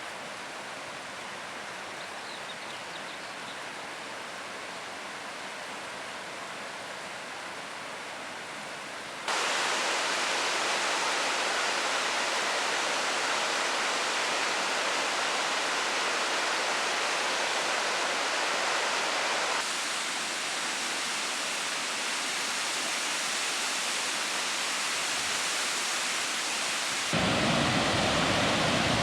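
Steady rush of falling water from a waterfall. It jumps abruptly louder about a third of the way in, drops back a little about two-thirds of the way through, and turns louder and deeper near the end.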